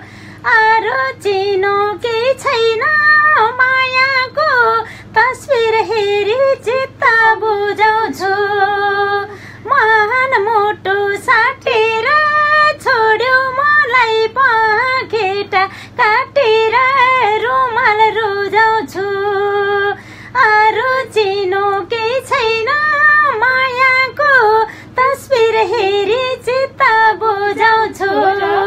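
A woman singing a Nepali song unaccompanied, in a single voice with wavering, ornamented pitch. She sings in phrases, with brief pauses for breath.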